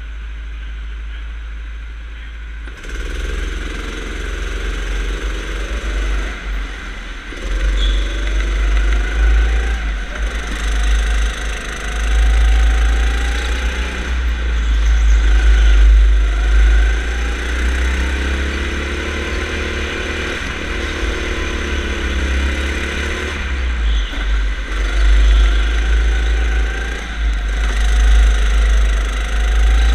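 Go-kart engine pulling away about three seconds in, then rising and falling in pitch again and again as the kart accelerates down the straights and eases off for the corners.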